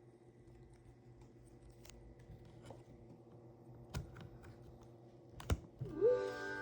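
Light clicks and taps on a Samsung Series 9 laptop, with a couple of sharper knocks, then near the end ChromeOS Flex's charging chime: a pitched tone that bends up and then holds.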